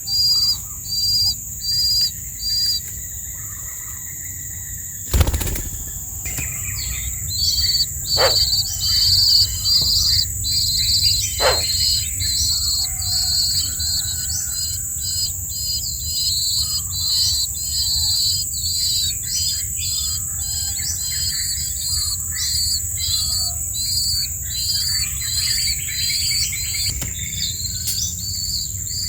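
Baby birds in the nest chirping in high-pitched calls, becoming a fast, dense run from about seven seconds in, over a steady high insect drone. A single knock about five seconds in.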